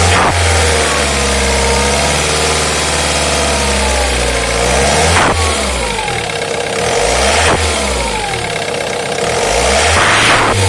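Ford Mondeo Mk3 2.0 TDDi diesel engine revved up and let fall back several times, with the turbocharger's whistle rising and falling along with the revs.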